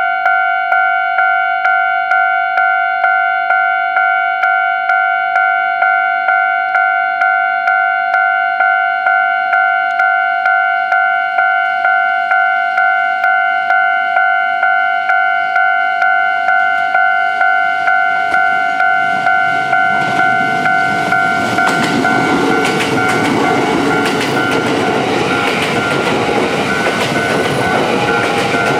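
Japanese level-crossing alarm bell ringing at a steady pace of about two strikes a second. From about 20 s in, a Kintetsu 22000-series and 22600-series limited express train passes over the crossing, and its running noise and wheel clatter build up over the still-ringing bell.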